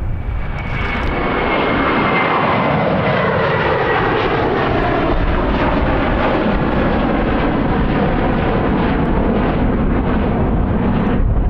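Twin-engine jet airliner at takeoff power climbing out: a loud, steady jet roar with a high fan whine that slides down in pitch as the jet passes.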